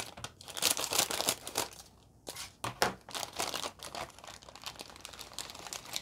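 Plastic instant-noodle packet crinkling in irregular bursts as it is opened and the noodle block and sachets are pulled out. The crinkling is loudest in the first half and thins out toward the end.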